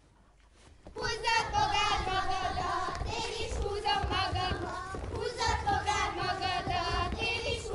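Hungarian folk dance music starts about a second in after a short pause and carries on with sustained, wavering notes. Under it are the low thuds of dancers' feet on the stage boards.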